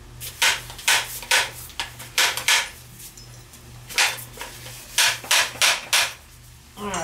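Pipe threading machine's chuck being spun and slammed by hand on the pipe, giving a series of sharp metal clanks about two to three a second. They come in two runs, a pause of about a second and a half between them.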